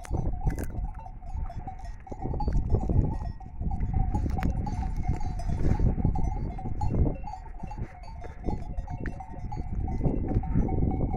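A flock of Merinolandschaf sheep on pasture, with sheep sounds over a heavy low rumble on the microphone.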